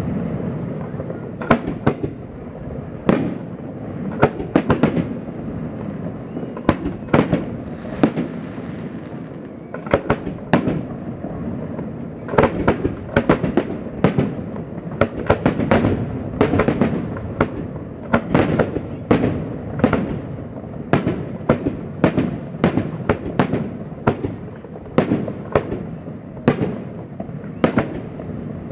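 Aerial firework shells bursting in a display, sharp bangs one after another over a low rumble. The bangs come faster and closer together from about halfway through.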